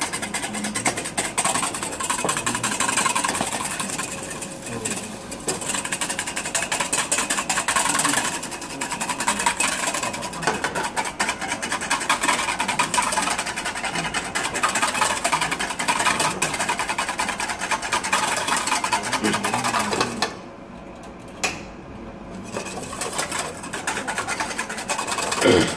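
Wire whisk beating wine sabayon (egg yolks and wine) in a stainless steel bowl over a pot of boiling water: a fast, steady clatter of metal wires scraping the bowl. It stops for about two seconds near the end, with a single tap in the pause, then starts again.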